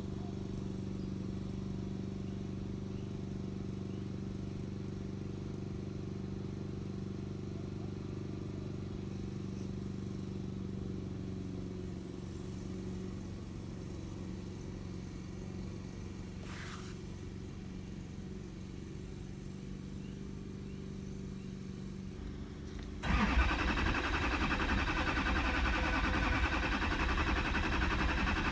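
A steady hum, then about 23 seconds in the 2008 Duramax LMM's 6.6-litre V8 turbodiesel is cranked over by its starter and keeps cranking without catching: a crank-no-start, with the injectors not firing.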